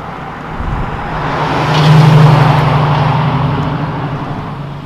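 A lowered Volkswagen Golf GTI driving past at low speed, its engine note steady in pitch, growing louder to a peak about two seconds in and then fading as it moves away.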